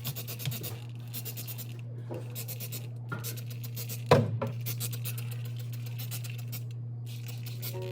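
Repeated scrubbing strokes, something rubbed back and forth on a hard surface by hand, with one loud knock about four seconds in and a steady low hum underneath.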